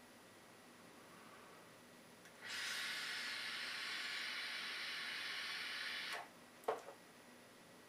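Steady hiss of a long inhale through a Geek Vape Aegis Boost pod mod, air drawn through the pod as the coil fires, lasting about four seconds. A brief click follows just after it stops.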